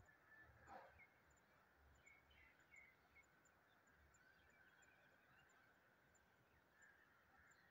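Near silence: faint outdoor ambience with a few short, faint high chirps scattered through it.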